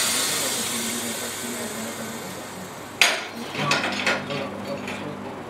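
Pneumatic shoe-sole press hissing with compressed air, the hiss fading steadily over about three seconds. Then a sharp click and a few light metallic knocks and rattles as the press is worked.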